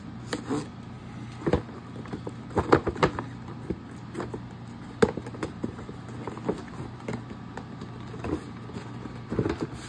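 Cardboard firework boxes and shells being handled and opened: scattered taps, knocks and scrapes of cardboard, over a faint steady low hum.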